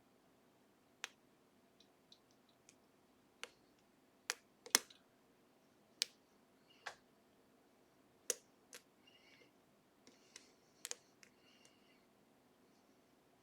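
Lock pick clicking and tapping against the gin spool pins inside a Ruko/Assa 500 lock as they are bounced up: irregular, sharp little metal clicks, some with a faint ring.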